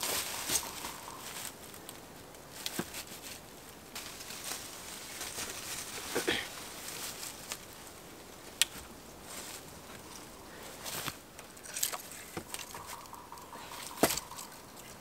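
Scattered sharp wooden knocks and dry rustles as dead poles are handled and set against a log shelter frame, with footsteps on dry leaf litter.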